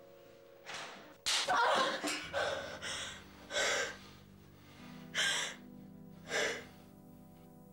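A woman breathing in a run of heavy, uneven gasps, the longest and loudest about a second in, then shorter ones spaced out to about six seconds in, over soft background music.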